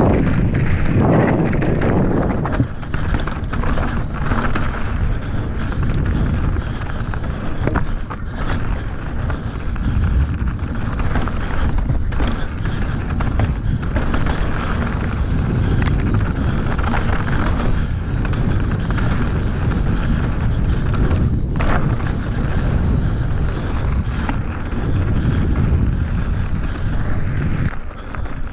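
Wind buffeting the microphone and tyres rumbling over a rocky dirt trail as a mountain bike descends, with scattered sharp clicks and knocks from the bike.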